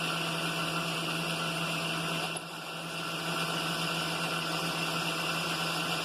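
Milling machine running steadily with its spindle turning the boring head, a constant motor hum and hiss that drops briefly about two and a half seconds in.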